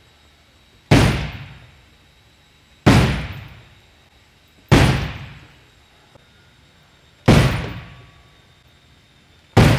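Sledgehammer striking an HDPE (high-density polyethylene) boat hull: five heavy blows about two seconds apart, each echoing briefly. The polyethylene hull takes the hits without holing.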